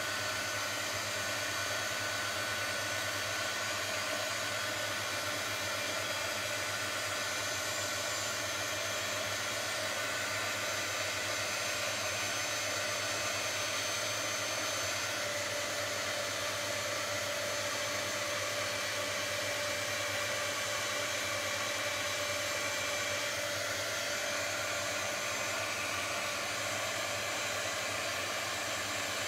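Handheld heat gun running steadily: a constant blowing noise with a faint steady whine. It is warming encaustic beeswax just enough to smooth out the brush strokes without fully melting it.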